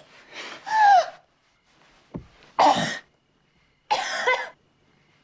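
A woman gasping and coughing in four short bursts about a second apart, the first a falling, voiced gasp: she is coming round from a heroin overdose after an adrenaline shot to the heart.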